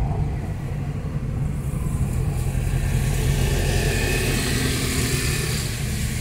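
Car engine and road noise heard inside the cabin while driving slowly: a steady low rumble that grows a little louder about two seconds in.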